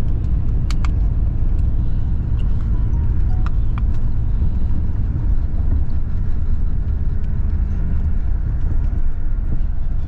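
Steady low rumble of a Marcopolo Paradiso G8 1800 DD double-decker coach, heard from inside the passenger cabin as it pulls off the highway into a stop. A few light clicks sound about a second in and again between three and four seconds in.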